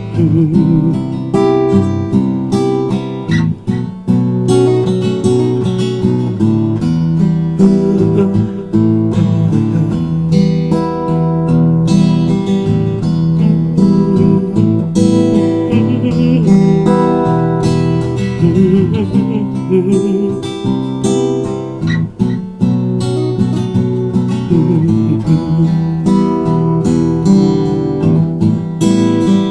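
Acoustic guitar strumming chords in an instrumental passage of a song, with no singing.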